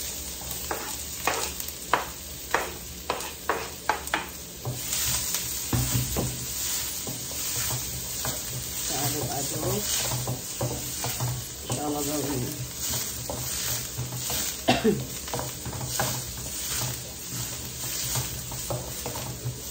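Chopped onion frying in butter in a non-stick wok, sizzling steadily, while a wooden spatula stirs it and knocks and scrapes against the pan. A quick run of sharp taps comes first, and the sizzle grows steady after about five seconds.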